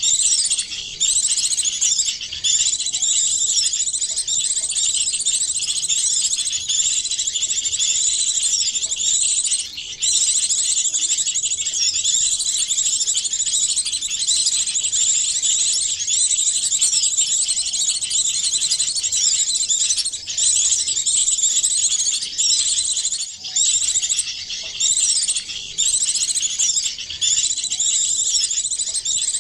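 Dense, continuous chorus of high-pitched small-songbird chirps and twitters, many short calls overlapping without pause: a bird-lure recording that mixes the calls of several small birds to draw small birds in.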